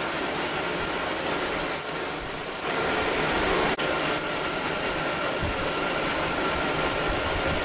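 DenaliWeld handheld laser welder welding with wire feed: a steady hissing noise. About four seconds in it breaks off briefly and resumes as the welder switches from a continuous bead to pulse (scale) welding.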